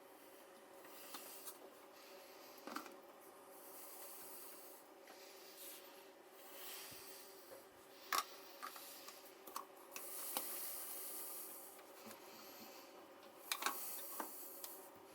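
Faint rubbing and scraping of hand work, with a few light clicks, over a steady faint hum.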